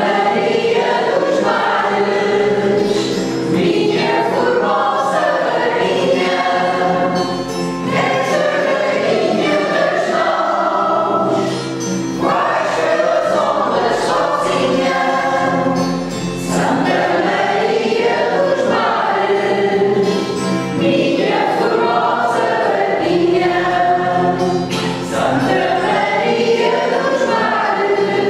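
Mixed choir of men's and women's voices singing a song in several parts, accompanied by a strummed acoustic guitar.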